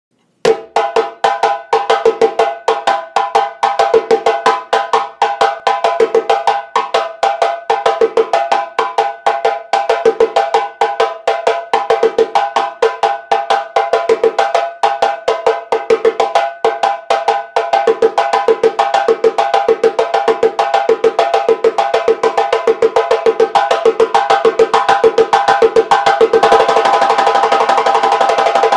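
Guinean djembe with a lenke-wood shell and thick goat-skin head, played with bare hands in a fast, steady rhythm of ringing strokes. About 26 seconds in, the strokes close up into a rapid roll.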